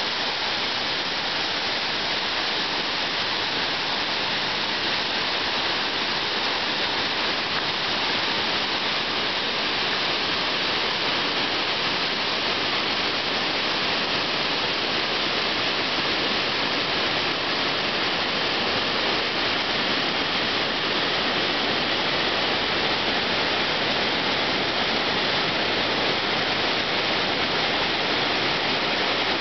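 Water pouring down the Cleveland Dam's concrete spillway: a steady, unbroken rush of white water.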